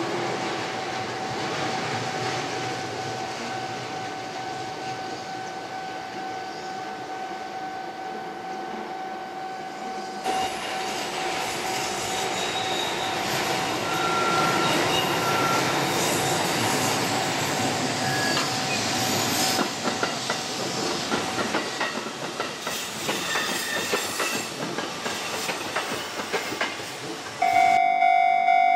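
Sanyo Electric Railway electric trains running: first car 5632 approaching with a steady whine over the running noise, then a 3100 series train rolling with wheels clacking over rail joints. Near the end a loud repeating electronic ringing starts, pulsing a few times a second.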